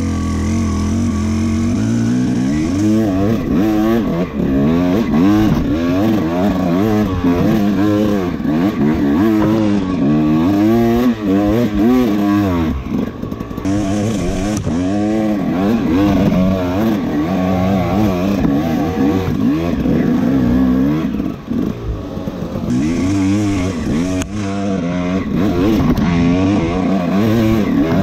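Enduro dirt bike engine ridden hard, its pitch rising and falling over and over as the throttle is opened and closed and the gears shift.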